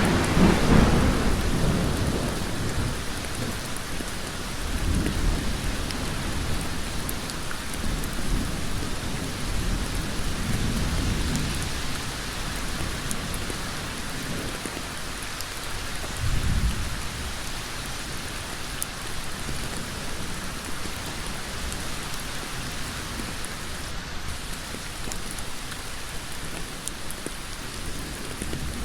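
Heavy rain pouring steadily onto a road, with low rumbles that swell and fade: the strongest in the first couple of seconds, then three weaker ones about every five seconds.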